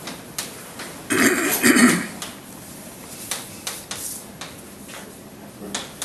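A person coughs twice, about a second in. Chalk clicks and scrapes against a blackboard as someone writes.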